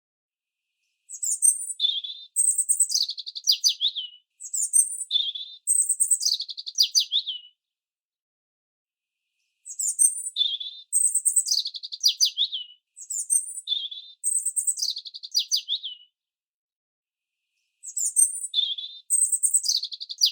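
Bird song: bouts of high chirps and quick falling notes, each lasting several seconds, separated by pauses of about two seconds with no other sound between them.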